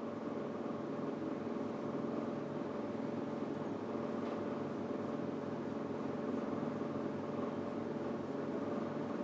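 Steady low room hum, with a few light scrapes of a marker drawing on a whiteboard.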